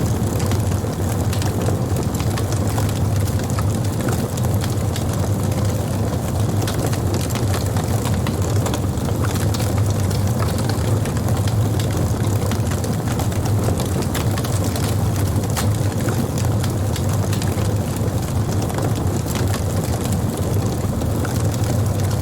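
Wood campfire burning, with a steady low rumble and frequent small crackles and pops throughout.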